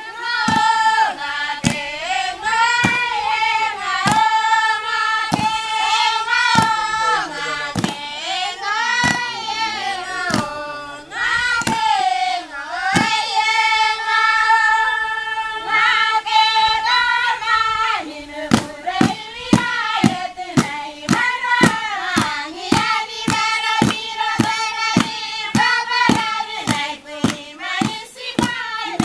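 A group of women and girls singing a melody together in high voices, keeping time with regular handclaps that come faster in the second half.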